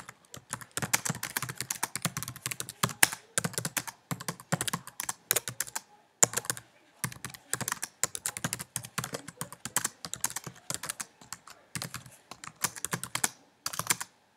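Typing on a MacBook keyboard: a fast, irregular run of key clicks with short pauses about six seconds in and near the end.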